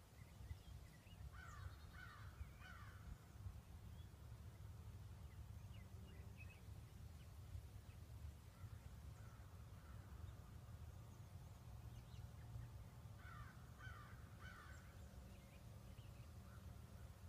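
Faint distant bird calls, a short run of repeated calls about two seconds in and again about thirteen seconds in, over a faint steady low rumble.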